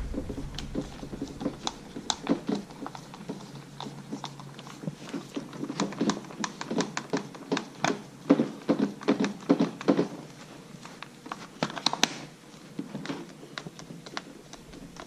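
A screwdriver working a screw out of a RedMax blower: a run of quick clicks and small knocks, thickest in the middle, then sparser.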